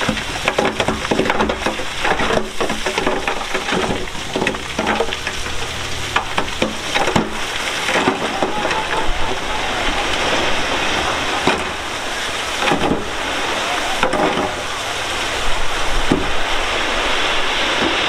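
Loose stone and gravel crunching and clattering under heavy earthmoving machinery, many small knocks and cracks over the low running of a diesel engine.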